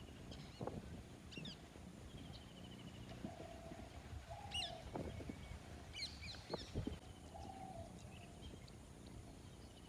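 Several birds calling: a buzzy trill, quick high whistles that rise and fall, and a lower note held about a second, heard twice. A few dull low knocks come in between.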